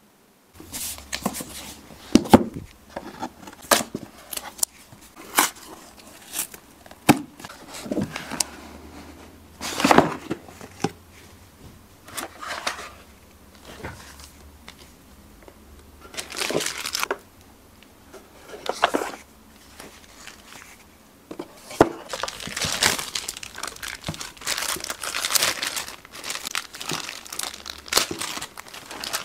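Unboxing noises: cardboard packaging being opened and handled, then a plastic bag crinkling as it is pulled off a speaker. Irregular rustles, scrapes and knocks, with denser crinkling near the end.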